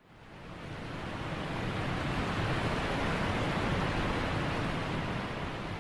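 A steady rushing hiss, like wind or surf, fading in from silence over the first couple of seconds and easing off a little near the end.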